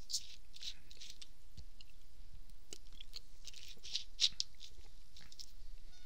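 Faint, irregular small clicks and rustles close to the microphone over a steady hiss, with one sharper click about four seconds in.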